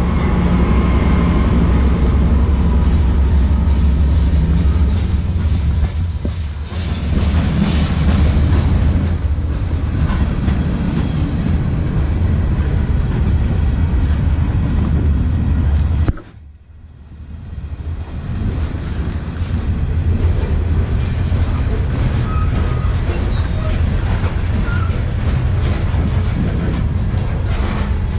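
Norfolk Southern freight train passing close by: the second of two GE Dash 9-44CW diesel locomotives goes by with its engine running, then a line of covered hopper cars rolls past with a loud, steady rumble. The sound drops away suddenly for about a second just past halfway, then builds back up.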